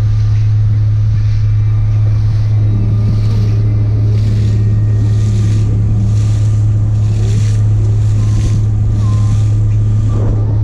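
Motorboat engine running steadily under way, a low drone, with water rushing and splashing against the hull in surges about once a second and wind on the microphone.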